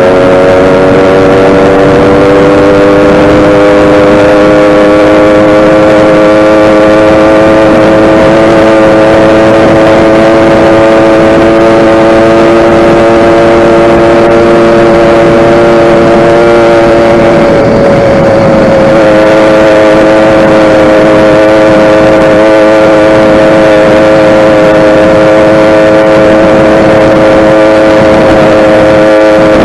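YD100 two-stroke motorized bicycle engine running loud at a steady, held pitch, as under constant throttle. A little past halfway it briefly falters and dips before settling back to the same pitch.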